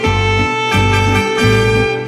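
Background music: a held melody note over a steady, pulsing bass line.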